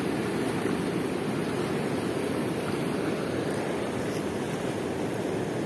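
Churning river water below a weir's gates, a steady deep rush against the concrete bank.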